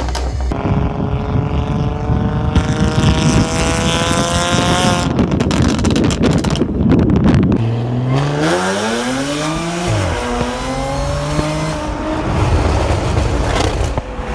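Audi A7 engine revving hard through a very loud exhaust. A long held rev climbs slowly in pitch and breaks off sharply about five seconds in, followed by a few choppy bursts. Later, revs rise quickly, fall, and level off.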